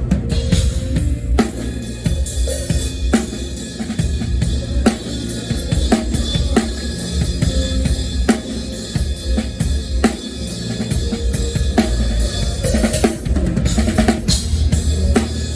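Drum kit played in a steady groove: bass drum, snare and cymbals, with sharp hits at a regular beat.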